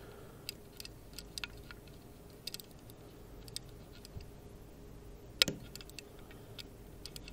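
Faint, scattered metallic ticks and clicks of a lock pick working the pins inside a MIWA 3800 dimple lock, with one sharper click about five and a half seconds in.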